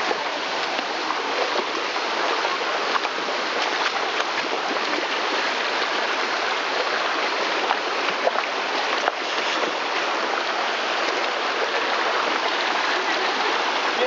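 Shallow stream running over rocks: a steady, unbroken wash of water.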